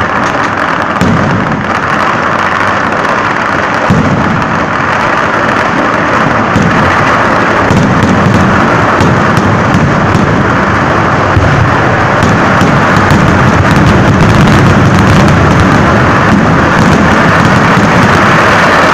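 Very loud, continuous barrage of firecrackers and fireworks. The explosions come so fast that they merge into a steady crackling rumble, with no pause.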